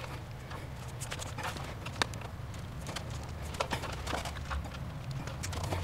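Electrical wire being fed through a plastic conduit pipe, making irregular light clicks and scrapes, over a low steady hum.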